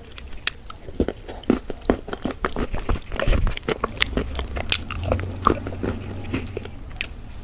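Close-miked mouth sounds of someone eating wet clay paste: irregular soft crunches and wet clicks, several a second.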